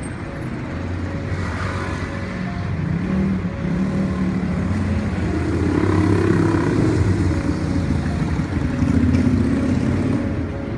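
Street traffic with motor vehicle engines passing close by, swelling louder about halfway through and again near the end.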